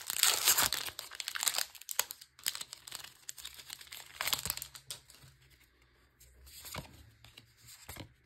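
Foil Magic: The Gathering booster pack wrapper crinkling as it is torn open and handled. It is a dense run of sharp rustles for the first second and a half, then scattered crackles every second or two.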